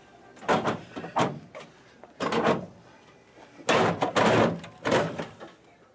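An equipment box being pulled and slid out of a shelf: a run of scrapes and knocks, the longest and loudest stretch about four seconds in.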